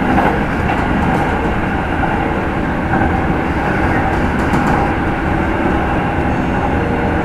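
Kintetsu 30000 series express train running at speed, heard from aboard motor car Mo 30215: a steady rumble of wheels on rail and motor drive, with a few faint clicks.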